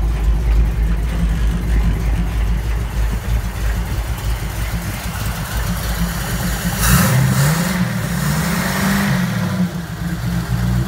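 Cadillac V8 hot-rod engine on three carburetors, running at idle. About seven seconds in it is revved once, rising in pitch and dropping back to idle about three seconds later.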